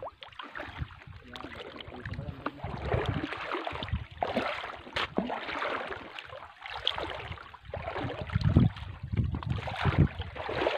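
Shallow seawater sloshing and splashing around reef rocks exposed at low tide. Uneven gusts of wind rumble on the microphone.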